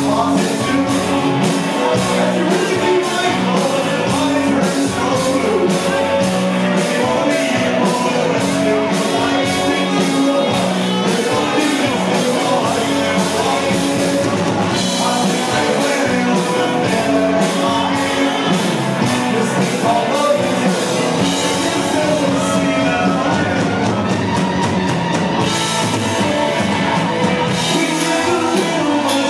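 Live rock band playing loudly: electric guitars and a drum kit with steady cymbal hits, with a lead vocal.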